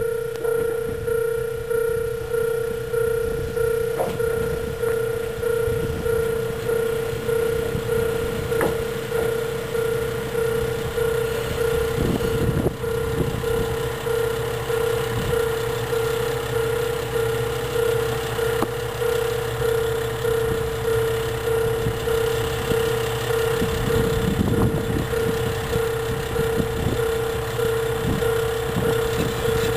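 Railway level-crossing warning bell ringing in a steady, evenly repeated electronic clang. A diesel railcar's engine runs low underneath.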